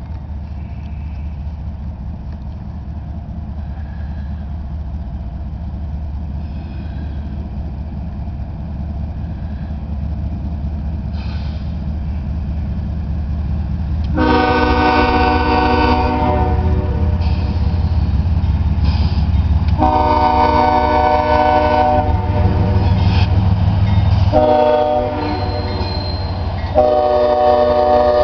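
Diesel freight locomotives approaching, their low engine rumble growing louder, with the lead GE ES44DC sounding a multi-note air horn about halfway through: two long blasts, a short one and a long one. This is the long-long-short-long grade-crossing warning.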